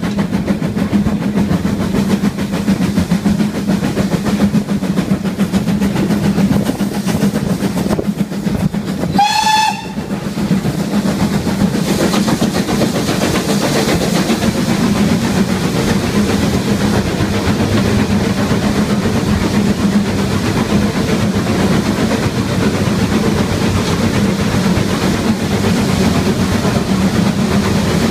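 Steam-hauled train of Mk1 coaches running steadily, heard from a carriage window, with the rolling noise of the wheels on the rails. About nine seconds in, a locomotive's steam whistle gives one short blast of about half a second, and the train then runs on into a tunnel.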